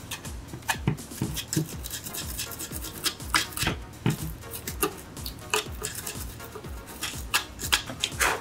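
Small screwdriver clicking and tapping against a graphics card's shroud and screws, a scatter of short sharp clicks, over background music with a steady beat.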